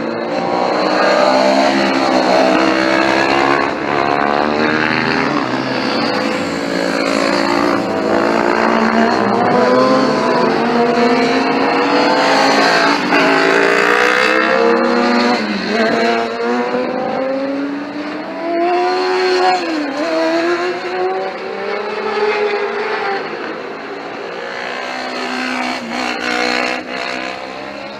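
Several sport motorcycles passing at speed on a race circuit, their engines revving hard. The overlapping engine notes rise and fall with throttle and gear changes, and the sound eases off near the end.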